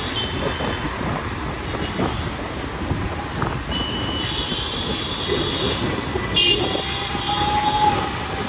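Street traffic noise: a steady rumble of passing vehicles, with some high-pitched tones in the middle and a sharp click about six and a half seconds in.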